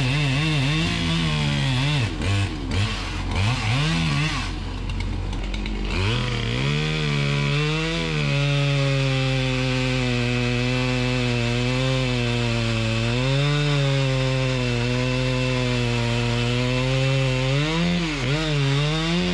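Two-stroke chainsaw cutting into a tree trunk at its base. The engine's pitch rises and falls repeatedly for the first few seconds, sags briefly about five seconds in, then climbs and holds high and fairly steady, with small dips, as the saw works through the cut.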